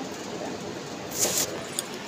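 Phone handling noise: a short, loud rustle about a second in and a small click near the end as the phone is moved, over a steady background hiss.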